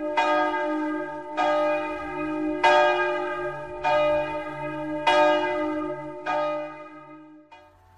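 Church bell tolling six slow strokes, about a second and a quarter apart, each stroke still ringing as the next is struck.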